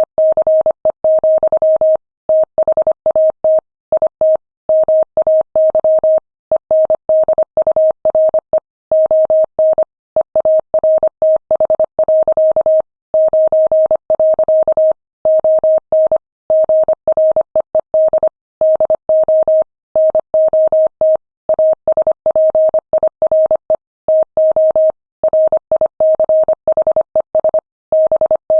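Morse code sent at 25 words per minute: a single steady tone keyed on and off in rapid dots and dashes, with short pauses between words.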